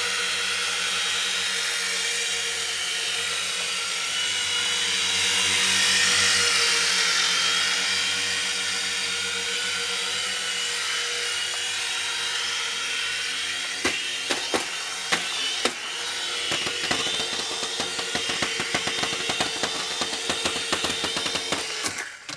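Venom Micro Troop Transporter twin-rotor micro RC helicopter whirring in flight, its small electric motors holding a steady pitch that rises and falls a little. From a little over halfway through, fast irregular clicking joins as the helicopter is pinned against a wall, its rotor blades striking it. The whir stops just before the end.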